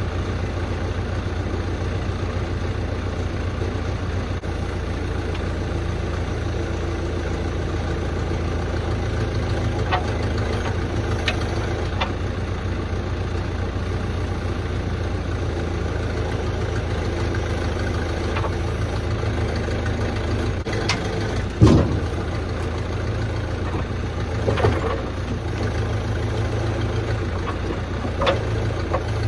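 A heavy engine runs steadily at idle, with a few short clunks and knocks over it. The loudest is a sharp knock about two-thirds of the way through.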